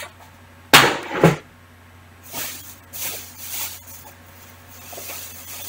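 Decorative plates set down with two quick knocks about a second in, followed by rustling of packing material as items are handled.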